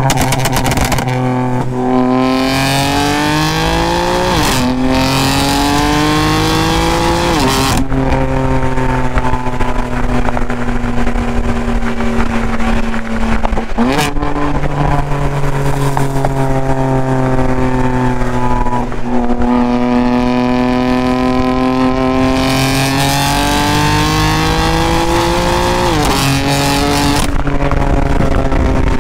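Exhaust of a de-catted, stage 2 tuned BMW F80 M3 twin-turbo inline-six while driving: a steady, loud engine note that climbs and sags slowly with speed and jumps abruptly in pitch several times at gear changes.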